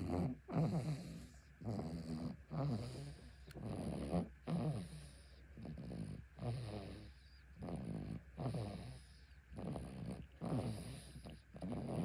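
Baby snoring in sleep: short, pitched snorting breaths that fall in pitch, coming in a steady rhythm of about one a second.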